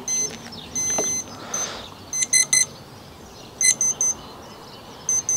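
Brushless drone motor's electronic speed controller sounding its power-up and arming tones through the motor: a series of short, high electronic beeps, some single and some in quick runs, before the motor spins.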